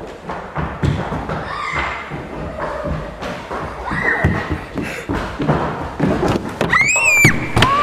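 Running footsteps thumping irregularly on a wooden floor, with brief high voices and a loud, high-pitched shriek that rises and falls about seven seconds in.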